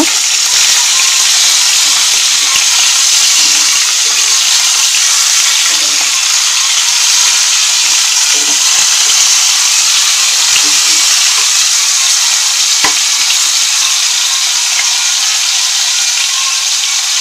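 Tilapia pieces shallow-frying in hot oil in a wok: a loud, steady sizzle. A spatula turns the pieces over, with a few light knocks and one sharp click against the pan late on.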